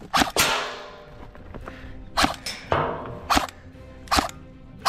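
Airsoft guns firing: about six sharp, separate cracks at irregular intervals, the first followed by a ringing decay.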